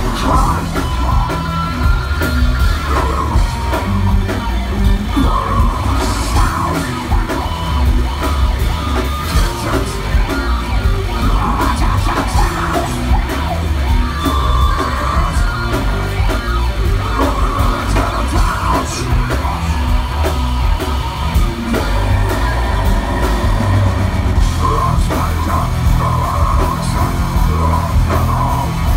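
Rock band playing loudly in a heavy-metal style, with guitar, drums and a vocal.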